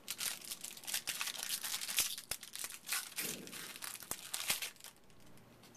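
Crinkling of a trading-card pack wrapper being torn and handled, with a few sharp clicks, going quieter near the end.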